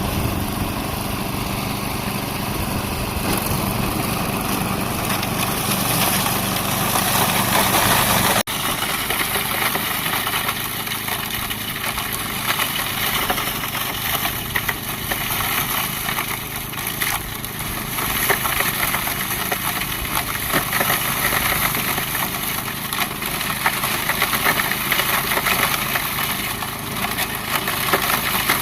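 Toro 828 snowblower engine running steadily while clearing snow. The sound drops out for an instant about eight seconds in, then carries on with a rougher, crackling edge.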